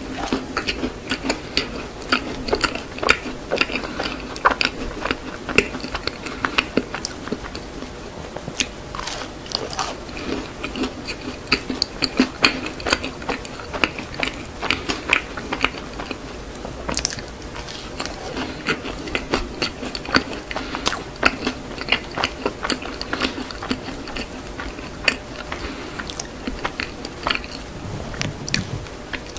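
Close-miked ASMR chewing of a small crunchy chocolate-chip cookie, with many irregular sharp crunches and mouth clicks.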